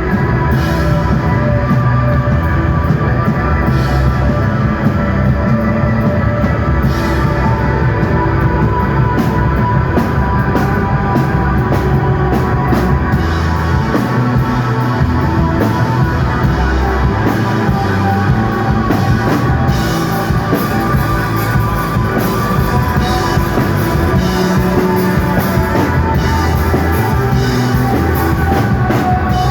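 Live rock band playing an instrumental desert-rock piece: sustained electric guitar over bass, with a drum kit keeping a steady beat and cymbal hits throughout.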